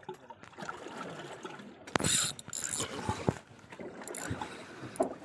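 Spinning fishing reel being handled, giving irregular clicks and rattles over steady background noise, with one sharp click about two seconds in followed by a brief burst of hiss.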